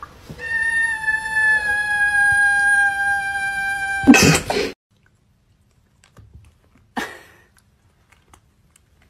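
Domestic cat giving a long, steady, high-pitched meow that lasts about three and a half seconds and sags slightly in pitch, then a short, loud, harsh sound about four seconds in.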